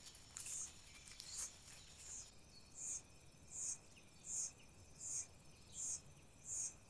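Faint, high insect chirping in a steady rhythm of about one and a half short chirps a second.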